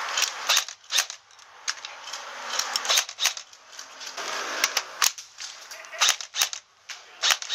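Airsoft rifles firing a dozen or so sharp single shots at irregular spacing.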